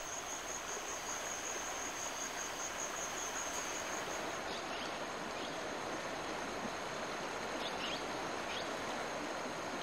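Tropical rainforest ambience: a steady hiss with a thin, high, continuous insect drone that stops about four seconds in, and a few faint chirps later on.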